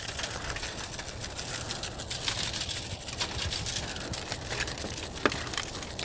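A shaker bottle of dry chicken rub shaken over raw lobster tails on a foil-lined tray: a dense patter of small ticks, with one sharper click about five seconds in.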